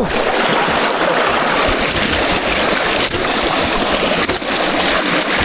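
Forest stream rushing steadily over rocks close by, a constant loud wash of water.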